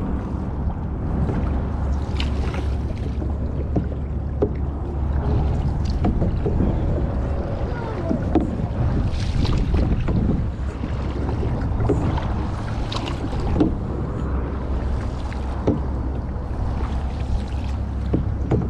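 Canoe paddle strokes swishing through the water about every three to four seconds, with occasional light knocks, over a steady rumble of wind on the microphone.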